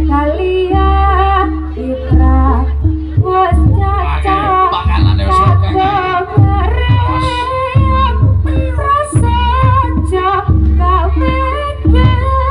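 A woman singing a wavering, ornamented melody over amplified traditional Javanese folk-music accompaniment with a steady, heavy low end.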